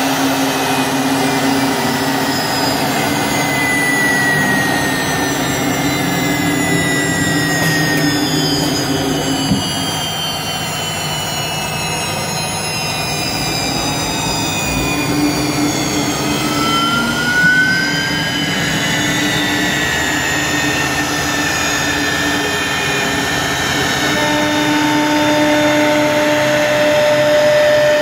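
Three-spindle CNC router running, its spindles whining steadily while the bits cut grooves in a wood panel. Several tones drift slowly in pitch, and one rises about halfway through.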